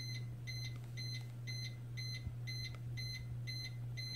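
2012 Suzuki SX4's dashboard warning chime beeping steadily about twice a second, with the ignition switched on and the engine not yet started.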